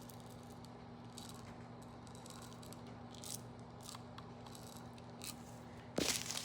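Faint scattered clicks and rustles of hands handling small plastic craft pieces and packaging, over a steady low hum, with a louder crinkling scrape about six seconds in.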